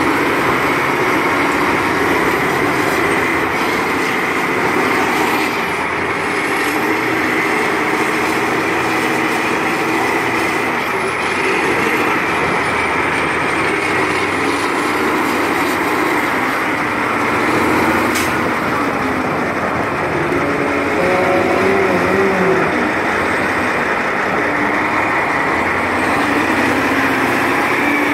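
Caterpillar 988F wheel loader's V8 diesel engine running hard close by, revving up and down as the machine works. A faint high whine rises and falls over it.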